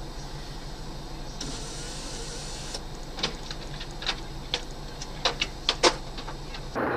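Steady low hum of a vehicle heard from inside. About a second and a half in there is a hiss lasting just over a second. It is followed by a run of irregular sharp clicks and knocks, the loudest near the end, before a sudden switch to louder rushing noise.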